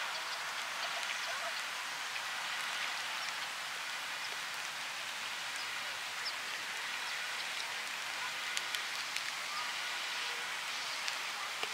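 Steady hiss of water, with faint scattered ticks and patters through it.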